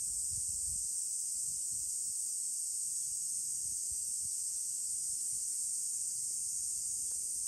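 Steady, high-pitched, unbroken drone of a chorus of insects in the trees.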